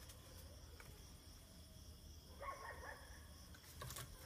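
Near silence, broken about two and a half seconds in by a faint, short whine from the dog.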